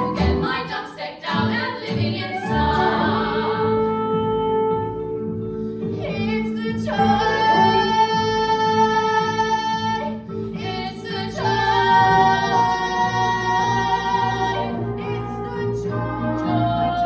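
Voices singing a musical-theatre number over instrumental accompaniment, with two long held notes, one about halfway through and another a little later.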